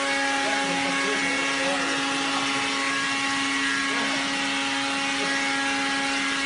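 Steady hum of a running motor, like a fan or blower: one constant drone with a fixed pitch and a hiss over it, unchanging throughout.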